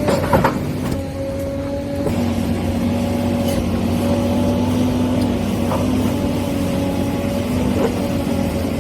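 Huina 1593 RC excavator's electric motors whining steadily as it works, the pitch stepping down about one and two seconds in as the movement changes, with a few short clicks, the loudest just after the start.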